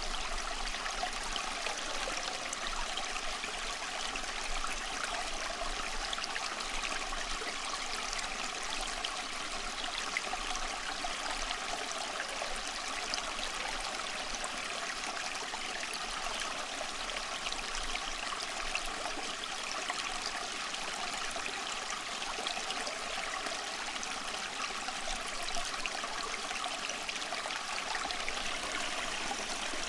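Steady running water, like a flowing stream, with a dense, even rush that does not change.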